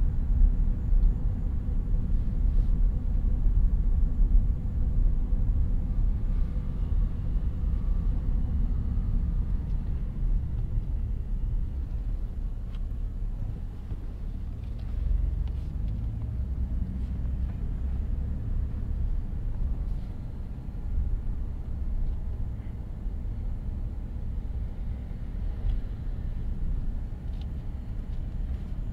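A car driving with a steady low road and tyre rumble. The rumble is heavier for the first nine seconds or so, then eases to a lighter, even level.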